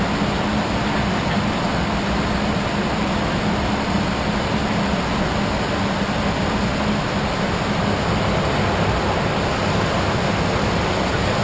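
Steady in-flight noise inside a private jet's cockpit: an even rush of airflow with a low, steady hum underneath.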